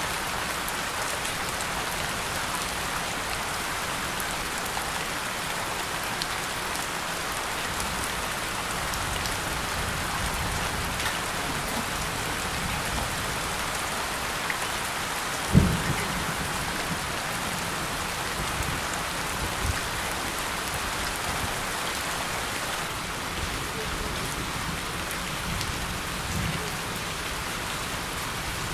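Steady rain falling, an even dense patter of drops, with one short low thump about halfway through.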